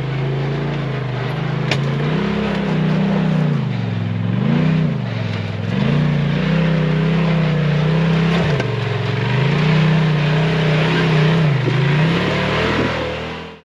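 Side-by-side UTV engine running under changing throttle, its pitch rising and falling several times as the driver works the gas; the sound cuts off suddenly near the end.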